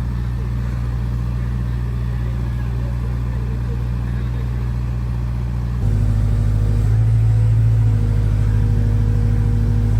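Diesel engine running steadily under load. About six seconds in it gets louder and its note changes, as the engine is revved up.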